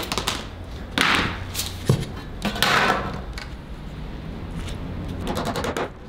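A saw cutting a short length of wooden carpet tack strip: two strokes about two seconds apart, with a sharp knock between them and a run of quick clicks and knocks near the end.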